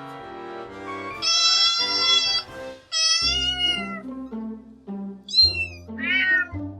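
A cat meowing four times, high-pitched: a long meow about a second in, another about three seconds in, then two shorter, falling meows near the end, over background music.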